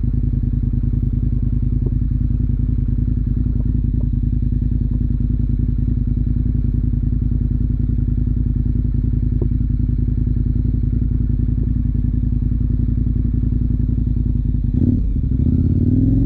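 KTM motorcycle engine running steadily at one speed, with a few faint clicks. Near the end the engine note shifts and begins to rise as it revs up.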